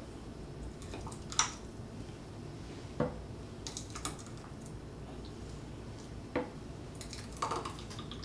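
Light plastic taps and clinks of a measuring pitcher against a plastic popsicle mold as strawberry lemonade is poured into the mold cups: a handful of short knocks spread a second or two apart, over a low steady hum.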